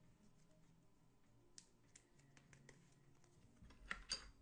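Faint scattered clicks and ticks of trading cards and foil packs being handled, then two louder brief crinkles close together near the end.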